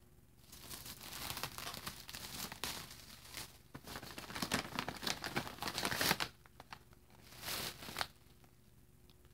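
Bubble wrap and plastic packaging crinkling and rustling as hands rummage through a parcel and lift out bagged RC tires. It goes on for about six seconds, stops, then comes back in a shorter burst near the end.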